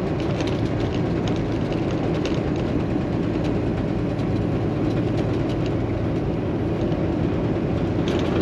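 Semi-truck diesel engine running, a steady rumble with a low hum heard from inside the cab.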